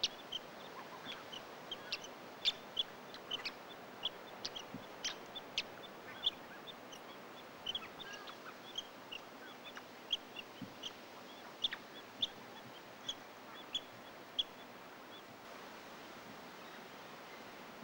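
A flock of plumed whistling ducks giving many short, high-pitched whistled calls, often several a second. The calls stop shortly before the end.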